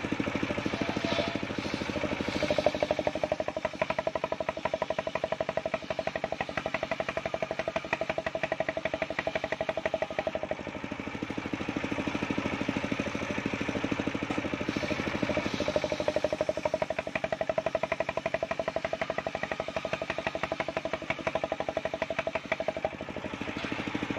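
Engine-driven circular sawmill running with a fast steady engine beat, its large blade cutting waru (sea hibiscus) wood. A higher steady whine comes in twice for several seconds at a time while the blade is in the cut.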